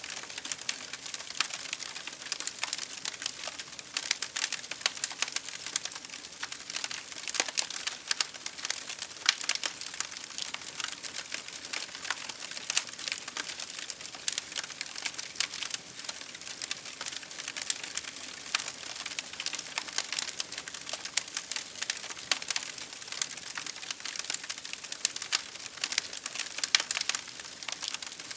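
Fire crackling: a steady, dense stream of small sharp pops and snaps over a soft hiss.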